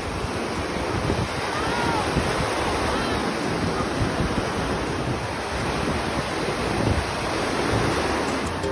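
Ocean surf breaking and washing over the sand, with wind rumbling on the microphone.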